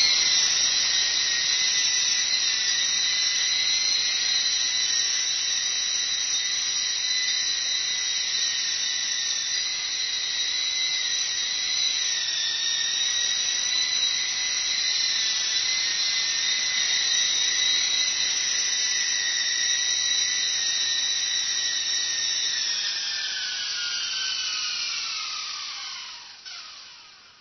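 Esky Lama v3 coaxial RC micro helicopter's electric motors and rotors whining steadily in flight. Near the end the whine falls in pitch and fades out as the motors spin down.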